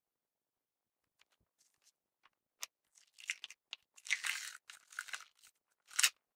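Translucent purple glitter slime pressed and poked in its clear plastic tub, giving scattered crackles and clicks. They start about a second in, grow denser toward the middle, and end with the loudest crackle just before the end as the slime is tipped from the tub.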